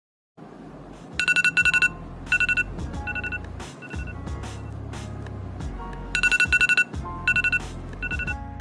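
Smartphone alarm ringing: a run of quick high beeps that repeats about five seconds later, over background music.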